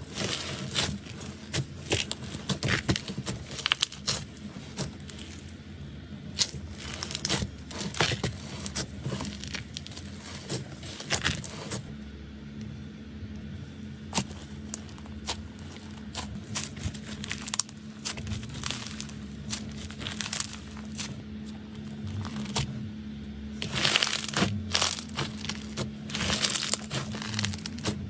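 Slime being squeezed and pressed by hand, giving dense crackling clicks and pops. The crackling is thinner in the middle and densest about three-quarters of the way through.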